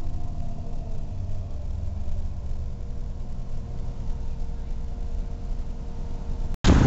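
Detroit Diesel 6V92TA two-stroke V6 diesel of a 1992 Orion V transit bus heard from inside the bus, its pitch falling over the first two seconds as the bus slows, then running at a steady low rumble with a faint steady whine. Near the end the sound breaks off and gives way to loud wind on the microphone.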